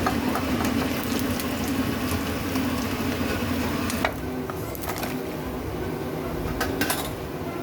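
A steady mechanical hum with a few sharp clicks and knocks, about four seconds in, five seconds in and near the end.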